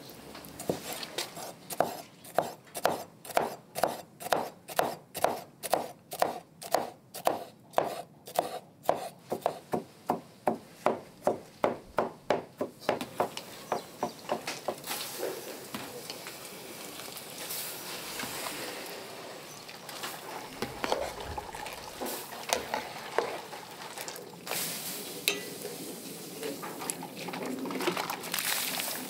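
Kitchen utensil working food in a steady rhythm, about two strokes a second, for the first dozen seconds, then irregular softer knocking and scraping.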